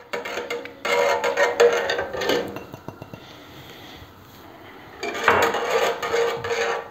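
Wire whisk beating wheat starch into water in an enamel pot, the wires scraping and clicking against the pot's sides and bottom. There are two bouts of whisking with a quieter pause of about two seconds between them.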